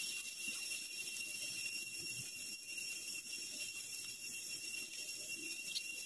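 Squid, prawns and beef sizzling on a hot griddle pan over a gas camping stove: a steady soft hiss with a thin high whine and faint crackles.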